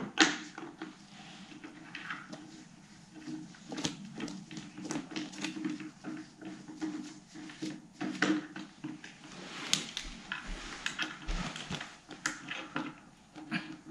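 Irregular taps, knocks and rustles as carpet-covered cat-tree panels and posts are handled and fitted together, mixed with a cat rummaging among paper in a wicker basket.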